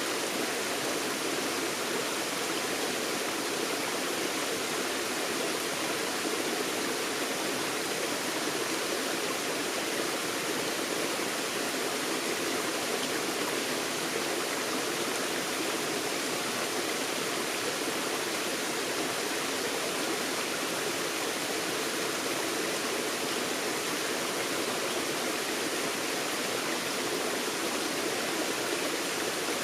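Forest stream flowing over rocks in a steady, even rush of water.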